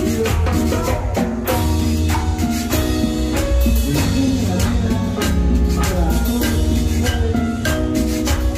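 Live cumbia band playing loudly: keyboard notes over a steady bass line and regular percussion.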